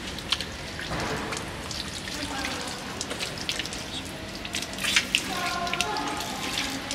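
Water running from a tap at a mosque ablution station and splashing as someone washes for wudu, with short irregular splashes over a steady stream.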